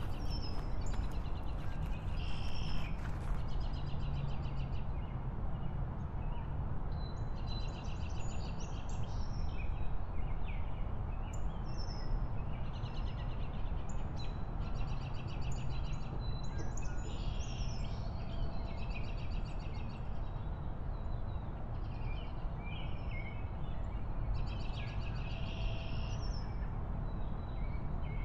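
Steady low rumble of wind and road noise from a moving motorbike, with birds chirping in short trilling bursts every one to three seconds.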